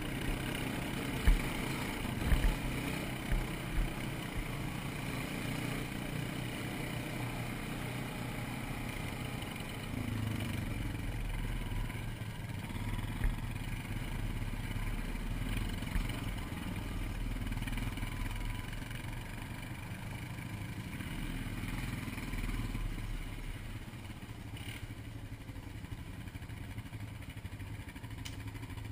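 ATV engine running under way, steady throughout, with several sharp knocks in the first few seconds.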